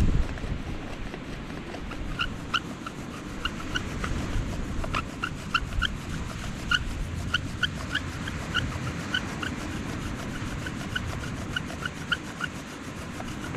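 Bow drill on a driftwood fire set being worked hard: the spindle rubs and squeaks with each stroke of the bow in a quick regular rhythm. The squeaks start about two seconds in and run until near the end.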